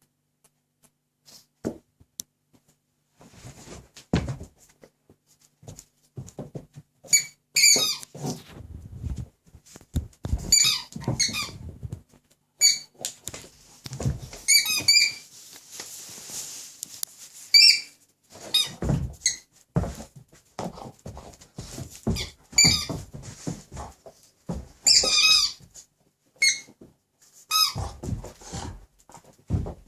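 Squeaky pig toy squeezed in a dog's jaws, giving short clusters of high, wavering squeaks every few seconds, starting about seven seconds in. Soft knocks and thuds of the dog handling the toy come between the squeaks.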